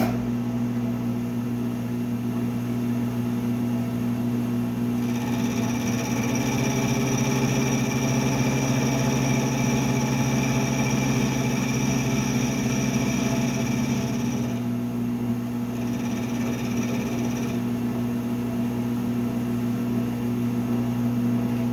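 Milling machine running with a steady motor hum, starting and stopping abruptly. From about five seconds in until about fourteen seconds, and again briefly around sixteen seconds, a higher, steady whine joins it as the cutter works the metal workpiece.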